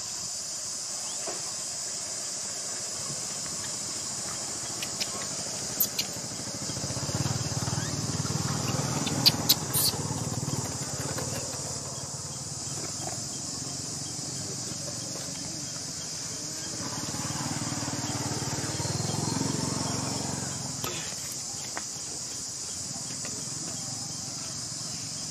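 Steady high-pitched insect buzz in outdoor ambience. A low rumble swells twice, and a few sharp clicks fall near the middle.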